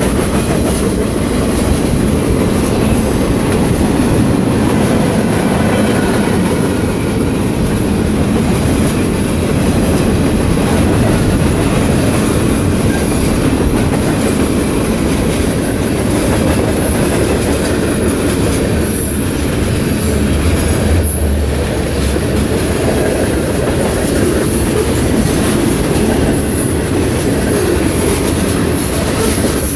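Cars of a long freight train rolling past: a steady, loud rumble of steel wheels on the rails.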